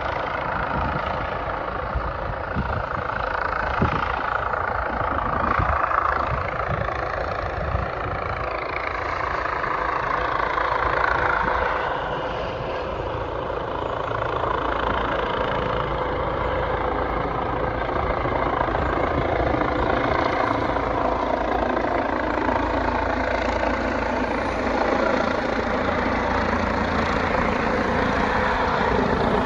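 Helicopter in flight, its rotor and engine running steadily, with low rotor thumps most distinct over the first several seconds and a steady whine tone throughout.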